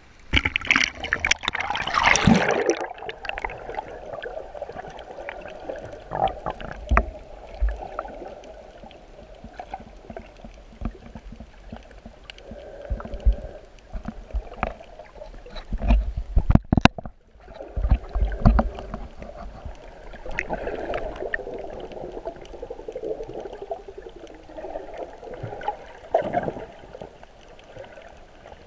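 Water sloshing and gurgling heard through a GoPro's waterproof housing as it goes under, loud and splashy for the first few seconds. After that comes a muffled underwater wash with scattered knocks and a cluster of low thumps a little past halfway, typical of water and hands moving against the camera case.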